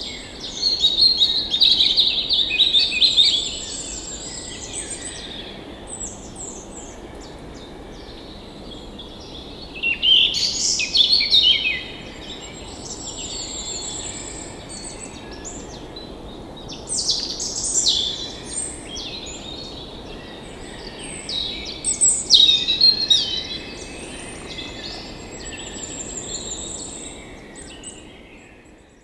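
Songbirds singing in repeated phrases of quick chirps and thin high trills, over a steady low background hiss. The sound fades out near the end.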